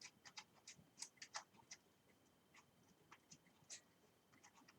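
Faint, irregular light clicks and scratches as the last Torx bolt is fitted into a bicycle stem, denser in the first second and again near the end.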